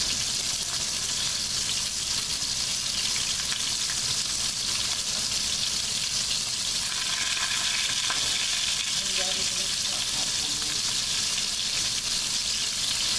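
Beef roast searing in hot oil in a pot over a high flame: a steady sizzle.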